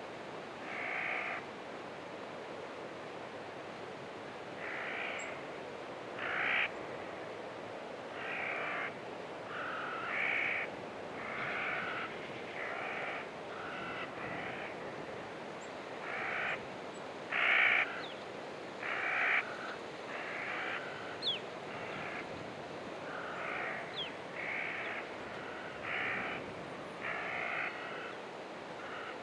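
Harsh crow-like caws, roughly one every second or two, over a steady hiss of wind in a desert ambience.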